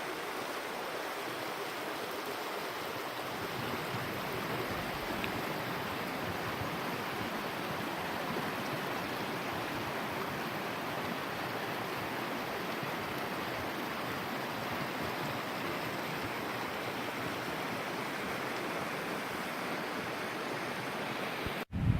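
Mountain stream rushing, a steady, even sound of running water. Near the end the sound cuts out for a moment, then a short low rumble of wind hits the microphone.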